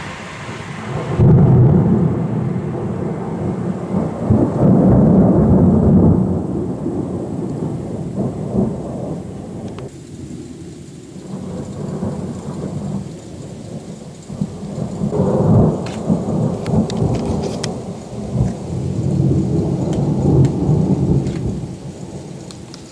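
Thunder from nearby lightning, two long rolls. The first comes in loud about a second in and rumbles away over several seconds. A second roll swells up around fifteen seconds in and rumbles on, fading near the end.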